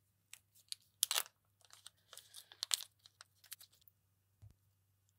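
Thin plastic backing film crinkling and crackling as it is peeled by hand off a small silicone pad, in a run of short crackles that are loudest about a second in.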